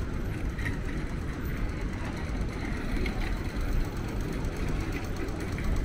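Steady low rumble of city street traffic, with vehicle engines running close by.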